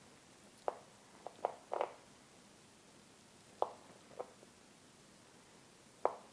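Kitchen knife slicing through a block of firm feta cheese, the blade knocking on a plastic cutting board at the end of each cut: about seven short, sharp taps at uneven intervals, a few in quick pairs.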